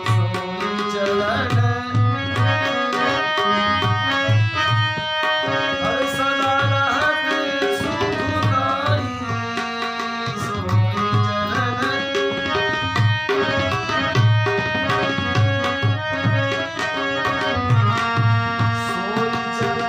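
Indian devotional bhajan music: tabla playing a steady rhythm, with clusters of deep bass-drum strokes, under held melodic accompaniment, probably an instrumental passage between sung lines.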